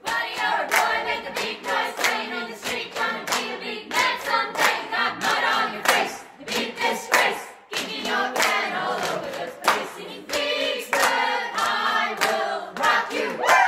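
A group of people singing together with steady hand claps keeping the beat, about two claps a second.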